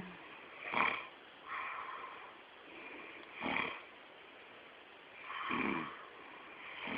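A sleeping person snoring: short rasping snorts on the in-breath every few seconds, with breathy hissing exhales between and one longer, rattling snore a little past halfway.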